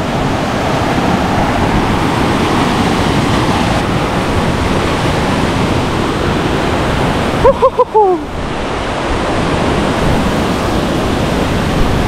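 Steady rush of a waterfall, heard close up. A little past halfway, a few quick, loud voiced sounds cut in briefly over the water.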